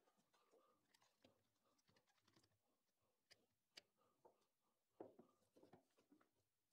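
Near silence with scattered faint clicks and light knocks, a small cluster of them about five seconds in: a bar clamp being handled and fitted onto the timber bench frame.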